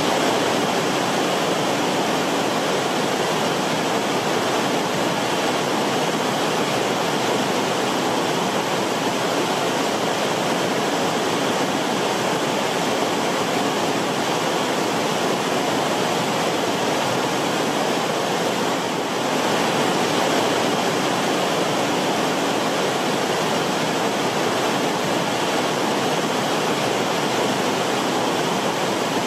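River water rushing in a steady, even stream. It dips briefly about two-thirds of the way through, then carries on.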